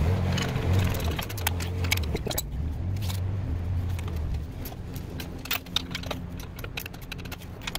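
A wrench clicking and metal hardware clinking as the U-bolt nuts on an air spring's lower bracket are tightened down at the leaf spring, with a low steady hum under the first half.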